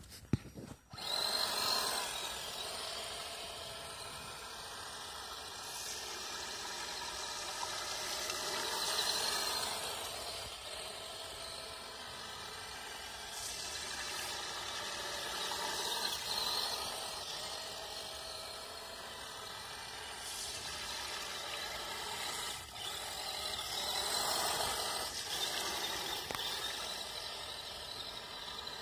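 Electric motor and gear whine of a waterproofed Axial SCX10 RC crawler driving through shallow water on ice. It rises and falls with the throttle, swelling three times.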